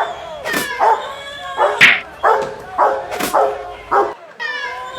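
A dog barking over and over, about seven short barks roughly half a second apart, with a few sharp cracks among them and a drawn-out cry near the end.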